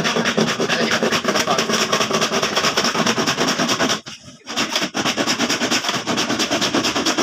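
Handsaw cutting through a hollow PVC panel in quick back-and-forth strokes, each stroke a sharp rasp. The sawing pauses briefly about four seconds in, then carries on.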